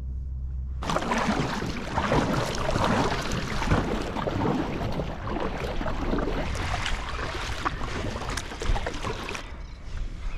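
Water splashing and sloshing around a kayak, irregular and close. It starts about a second in and stops abruptly near the end.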